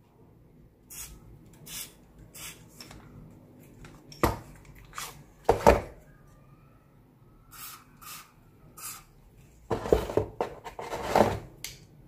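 Aerosol silicone spray squirted through its straw in several short hisses onto an airsoft gas pistol and its magazine to lubricate them, mixed with knocks and clatter of the pistol and magazine being handled, the loudest clatter near the end.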